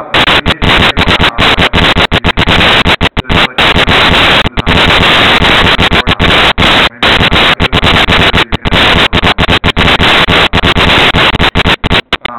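Loud, steady static hiss, broken many times a second by brief cut-outs: the noise and dropouts of an overloaded, low-quality camera microphone.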